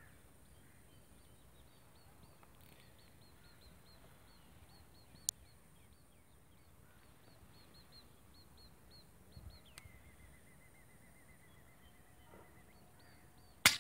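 Small birds chirping faintly over and over, with one bird giving a fast, even trill for about three seconds towards the end. A sharp click about five seconds in and a much louder sharp crack just before the end.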